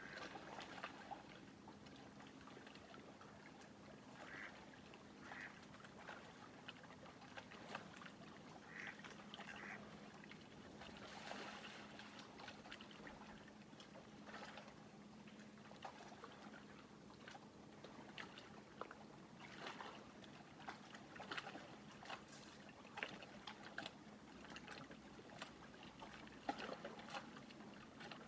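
Faint lake water lapping and trickling at the shore in many small splashes. A few short duck calls come in the first ten seconds or so, over a faint low steady hum.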